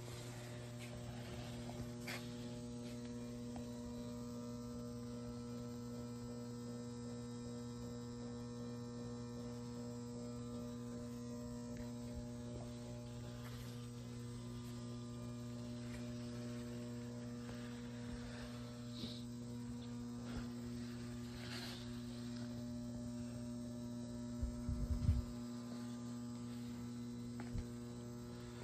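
Steady electrical mains hum, a low buzz with a higher overtone above it. Faint handling clicks come now and then, and a brief low bump sounds near the end.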